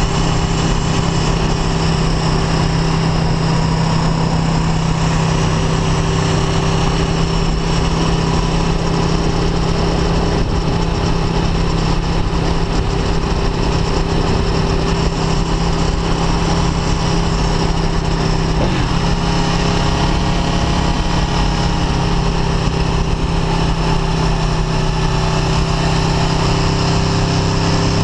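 Aprilia Tuono V4 1100 RR's V4 engine running at a steady cruise, heard from on board the moving motorcycle. Its note holds a constant pitch, with a brief change about two-thirds of the way through.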